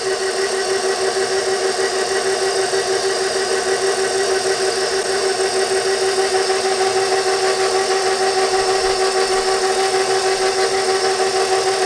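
KitchenAid stand mixer driving its pasta roller attachment, the motor and gears running with a steady whine as a sheet of dough is rolled through.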